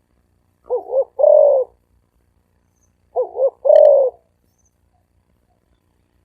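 Spotted dove cooing in the deep, resonant 'thổ ồm vang' voice: two calls about two and a half seconds apart, each two short notes followed by a longer one.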